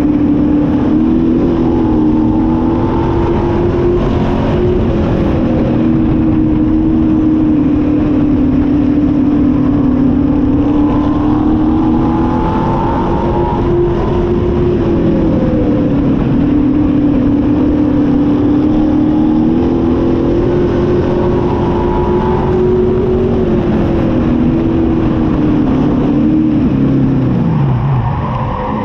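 Pure stock V8 race car engine heard on board, running hard on a dirt oval, its pitch rising and dipping a little every few seconds. Near the end the engine note falls away sharply.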